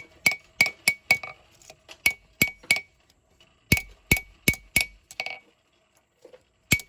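Hand-forging hammer blows on hot knife steel over an anvil, each blow ringing sharply, as the blade's point is drawn back out. They come in quick runs of three or four strikes with short pauses, then a lull about five seconds in, and one more blow near the end.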